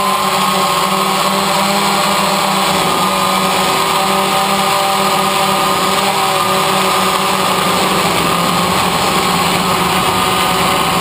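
DJI Phantom quadcopter's electric motors and propellers whining steadily in flight, picked up by the camera on the drone, over a constant hiss of rushing air. The pitch wavers slightly as the motors adjust.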